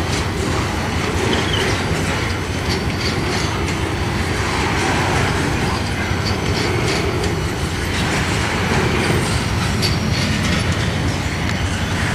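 Intermodal freight train rolling past close by, truck trailers on flatcars: a steady rumble of cars and wheels with repeated sharp clicks as the wheels pass over the rail joints.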